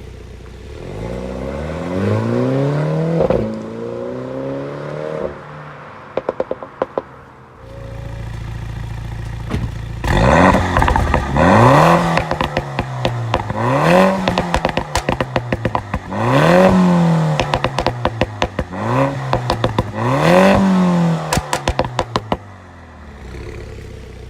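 2019 MINI John Cooper Works's tuned exhaust being revved. First comes a slower rev, then a run of quick throttle blips about every two seconds. Each blip is followed by rapid pops and crackles from the exhaust as the revs fall.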